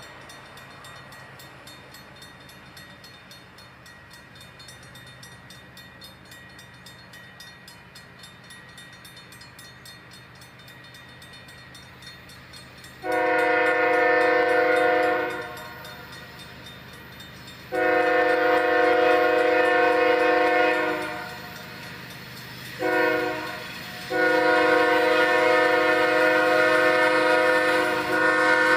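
BNSF GE ES44AC locomotive's multi-chime air horn sounding the grade-crossing signal: long, long, short, long, the last blast held on as the engine reaches the crossing. For roughly the first half only the low rumble of the approaching diesel and the rapid ringing of the crossing bell are heard.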